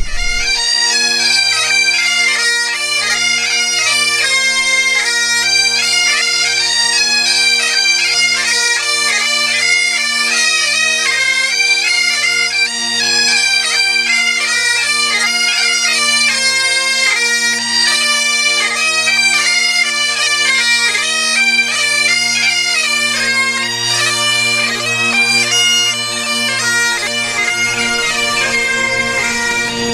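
Highland bagpipes played by a group of pipers: a tune on the chanters over steady, unbroken drones.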